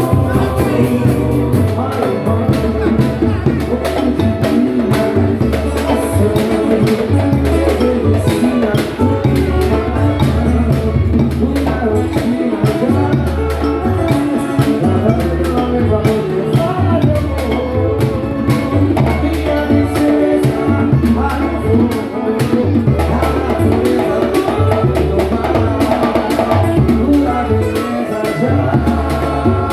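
Samba-pagode group playing: voices singing over steady, busy percussion and a bass line.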